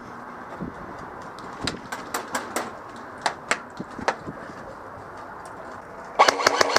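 Airsoft guns firing: scattered single sharp shots, then a short rapid full-auto burst near the end, the loudest sound.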